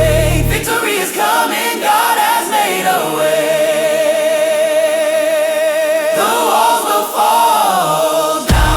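Gospel worship song with choir singing. The low bass and beat drop out about a second in, leaving the voices nearly alone, and they hold one long note in the middle. The bass comes back just before the end.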